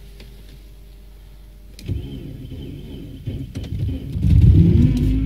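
Opel Omega's 2.2-litre Z22XE four-cylinder engine cold-started at −28 °C after standing two days: the starter cranks for about two seconds, then the engine catches about four seconds in and the revs flare up and begin to ease down.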